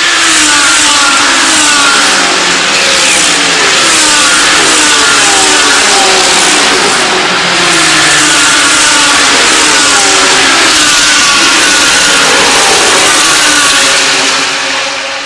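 Several GT3 race cars running at racing speed, their engine notes rising and falling with the throttle and gear changes. The sound swells in, stays loud and fades out near the end.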